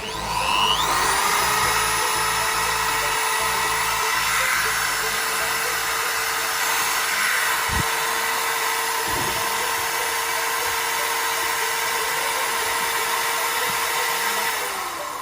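Benz 10 mm electric drill switched on, its motor spinning up to speed within about a second and running steadily with a high whine, then switched off near the end and winding down. Background music with a steady beat underneath.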